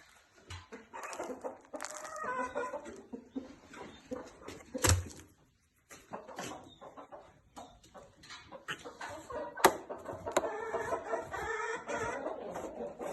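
Chickens clucking in two spells of calls, with a few sharp knocks between them.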